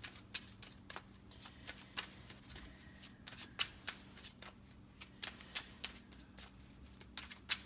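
Tarot cards being shuffled by hand: a run of irregular, sharp card clicks and slaps, several a second.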